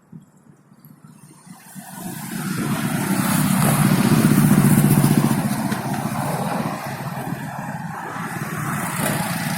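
A vehicle's engine noise that builds over about two seconds, peaks, then runs on steadily and loud.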